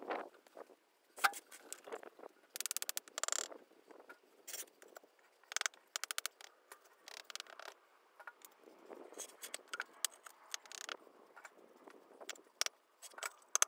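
A small hand pick scraping and tapping in sand, with irregular clicks and knocks of pavers being picked up and set in place; a quick run of scraping comes about three seconds in.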